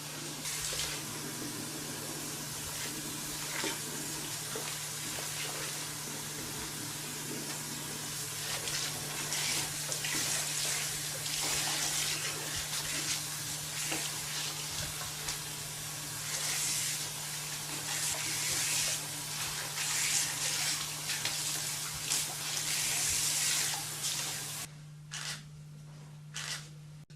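Water running and spraying, swelling and easing, then shut off near the end, followed by two short spurts.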